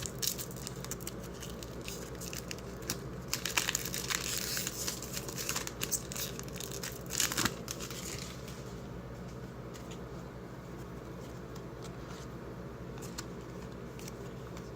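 A trading card pack's wrapper being torn open and crinkled, with quick crackly rustles for about eight seconds, after which only a faint steady hum remains.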